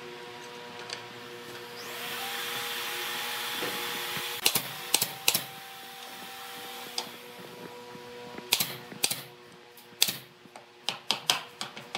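Pneumatic nail gun firing nails into a plywood board: sharp shots in two bursts, a few about four seconds in and a quicker run from about eight seconds on.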